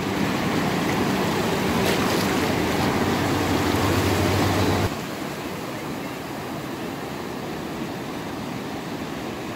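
Shallow ocean surf washing and swishing around bare feet wading at the water's edge. About five seconds in, it drops to a quieter, steady wash of waves.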